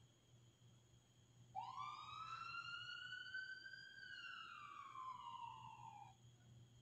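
Ambulance siren: one slow wail that starts about a second and a half in, rises in pitch, then falls again and stops about six seconds in.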